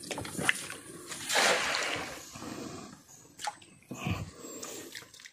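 Water splashing, loudest in one wash lasting about a second, with a few sharp knocks scattered through.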